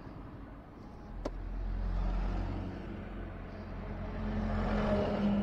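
A motor vehicle engine running, its low rumble swelling about a second and a half in and easing off, then settling into a steady hum. A single click about a second in.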